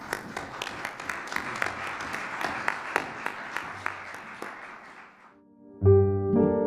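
Audience applause, many hands clapping, fading out about five seconds in. Piano music starts just before the end.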